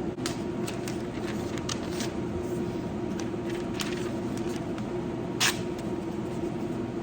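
Work Sharp Ken Onion Edition knife sharpener's motor running steadily with a hum, with scattered sharp ticks and one louder click about five and a half seconds in.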